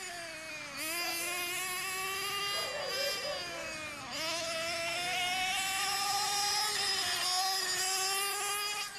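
Motor of a radio-controlled motorcycle whining, its pitch rising and falling with the throttle. It dips sharply about a second in and again around four seconds.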